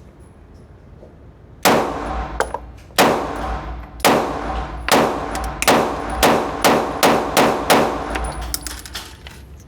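Single aimed shots from a 9mm Glock 19 pistol, about ten of them, starting about one and a half seconds in. The gaps between shots run about a second at first and shorten to about half a second near the end, and each crack rings on briefly.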